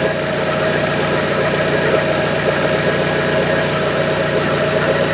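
Alfa Romeo 156 1.8 Twin Spark inline-four engine idling steadily after a full rebuild, heard through a phone microphone.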